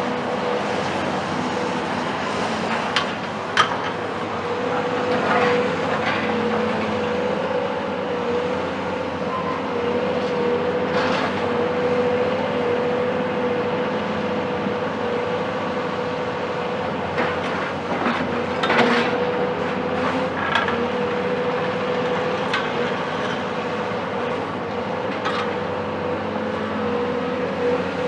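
Cat 374 hydraulic excavator's Cat C15 ACERT diesel running steadily under load, with a steady whine, while short sharp knocks and cracks of breaking building material come at irregular intervals.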